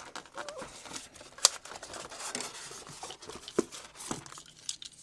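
Plastic packaging crinkling and rustling as an airsoft magazine is taken out of its box, with scattered sharp clicks and knocks, the loudest about one and a half seconds in.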